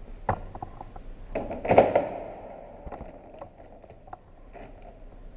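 Plastic clicks and knocks of a Mercedes-Benz W212 front grille being handled and pressed into place by hand to seat its clips, with a louder cluster of knocks a little under two seconds in.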